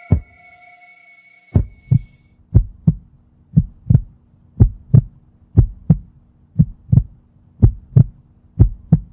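Heartbeat sound effect: paired lub-dub thumps about once a second, from a couple of seconds in, over a low steady hum. A held high tone fades out in the first couple of seconds.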